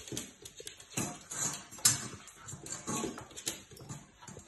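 A puppy's claws and paws tapping and scrabbling on a wood-effect floor and an upturned stainless steel bowl, in a run of irregular taps.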